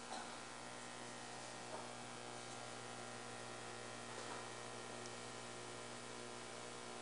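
Steady electrical mains hum with a faint hiss underneath: room tone picked up through the lecture-hall sound system, with no one speaking.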